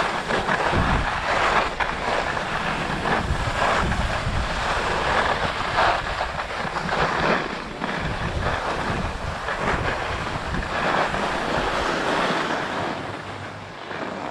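Skis scraping over a hard, icy ski run, mixed with wind rushing across the microphone during the descent. The noise eases near the end as the skier slows to a stop.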